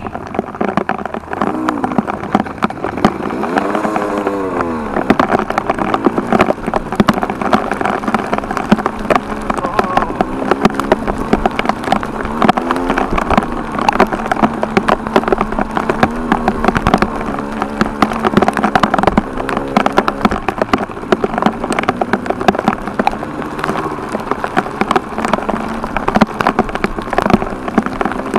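KTM enduro dirt bike engine under load on a climb, its revs rising and falling again and again as the throttle is worked, with a steady crackle of small clicks over it.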